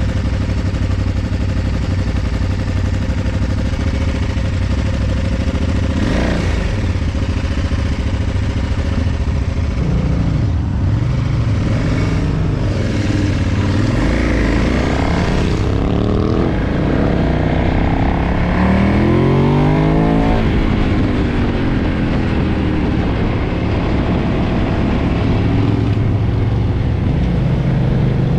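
KTM 990's V-twin engine with its stock exhaust, idling steadily at first, then revved with rising and falling pitch, and rising sharply about two-thirds of the way through as the bike pulls away and accelerates.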